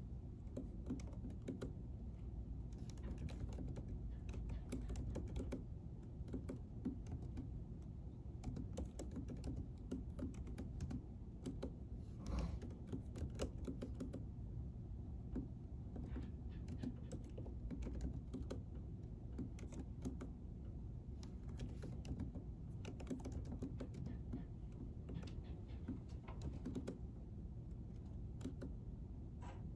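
Typing on a computer keyboard: irregular runs of key clicks over a steady low hum.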